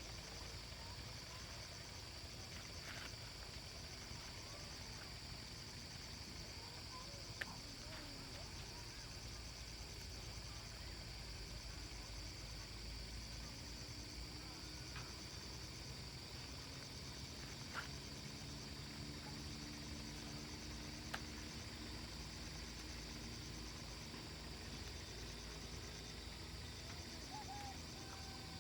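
Steady high-pitched chorus of insects chirping, pulsing finely, with a few sharp clicks and some faint low tones midway.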